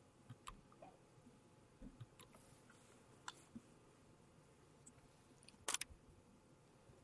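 Near silence: room tone with a few faint scattered clicks and small knocks, the loudest a quick cluster of clicks near the end.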